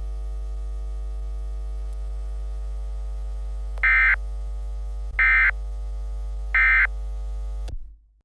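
Steady electrical hum under three short digital data bursts about 1.3 seconds apart: the Emergency Alert System end-of-message (EOM) tones that close an alert. The hum cuts off abruptly near the end.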